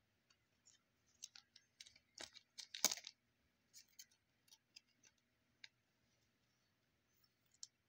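Trading cards being handled and a card slipped into a plastic sleeve: a series of faint clicks, taps and plastic rustles, the loudest just under three seconds in.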